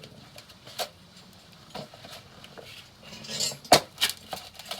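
Parts being handled on a workbench: a few light clicks and knocks, the sharpest about three-quarters of the way in, with a brief rustle just before it.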